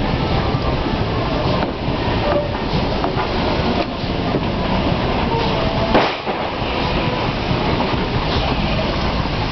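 Armoured train hauled by a Ty2 steam locomotive rolling past, a steady rail rumble with clicks now and then and a short louder burst about six seconds in.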